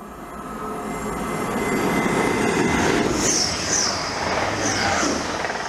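Grand Central Class 180 Adelante diesel multiple unit passing through the platform at speed. Its noise builds over about two seconds, holds loud, then begins to ease, with a few short high squeals about three to five seconds in.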